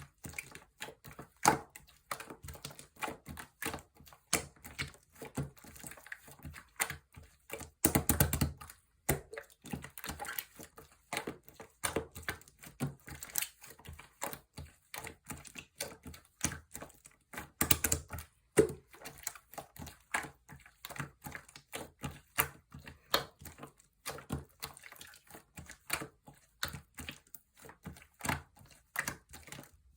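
Slime being squeezed and worked by hand, giving a fast, irregular run of sticky clicks and small pops. Two louder, longer squelches come about 8 and 18 seconds in.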